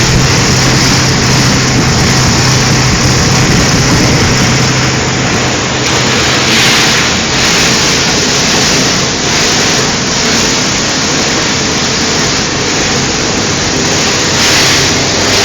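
Medical waste shredder running: a loud, steady machine noise, with a low motor hum that drops out about four seconds in.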